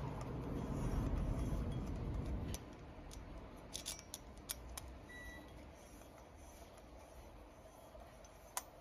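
Metal tool work on a camera ring being tightened: a low rubbing handling noise for the first couple of seconds, then a few sharp metallic clicks of the socket tool and T-bar about four seconds in and one more near the end.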